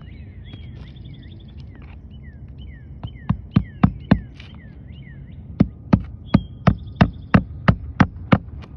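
Hammer driving roofing nails into a roof shingle: a run of five quick strikes, a pause of about a second and a half, then nine more at about three a second.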